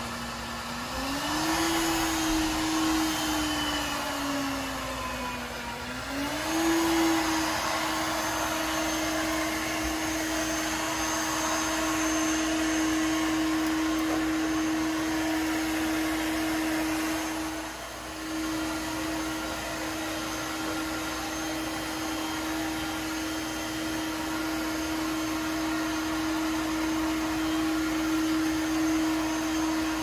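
iLife B5 Max robot vacuum running: a motor whine over the hiss of its suction, rising, falling and rising again in the first several seconds, then holding steady, with a brief dip about 18 seconds in.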